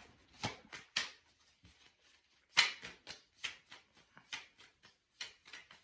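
Tarot cards handled by hand: about a dozen irregular sharp clicks and taps.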